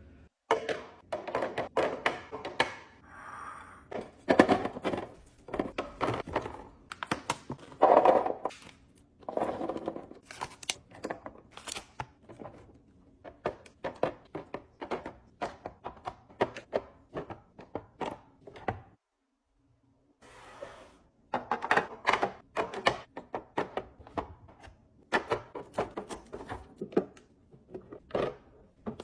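Groceries and snack packages being handled and set into containers: many quick plastic clacks and thunks with some crinkling of wrappers. The sound stops for about a second roughly two-thirds through, then resumes.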